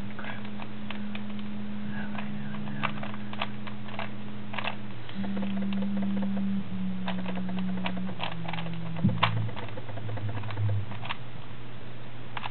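Plastic Rubik's Cube being turned rapidly in a speed-solve: irregular clicking and clacking of the layers, over a steady low hum that shifts in pitch a few times.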